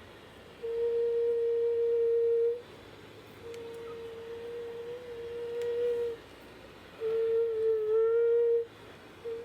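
A voice humming long, held notes on one steady pitch: four notes of about two seconds each, with short breaks between them and a slight waver in the pitch.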